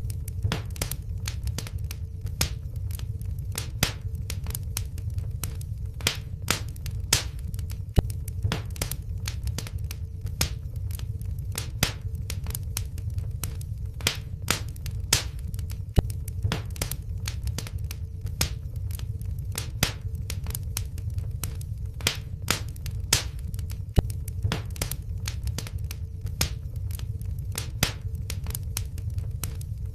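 Wood fire in a fireplace crackling: irregular sharp pops and snaps, a few a second, over a steady low rumble of the flames, with a faint steady hum.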